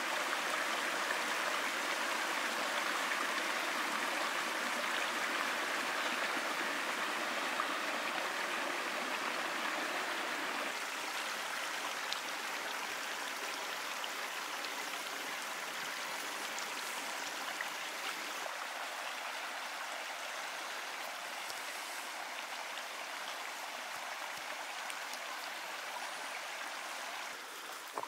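Shallow mountain creek running over rocks, a steady rushing and babbling that eases slightly after about ten seconds.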